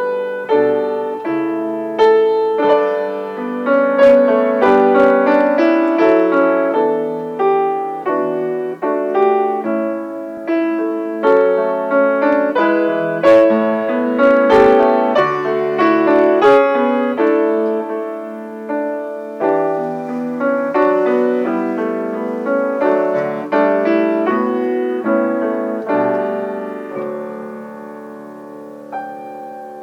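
Solo piano playing a slow prelude, with chords and melody notes struck and left to ring. It softens near the end to a lingering chord.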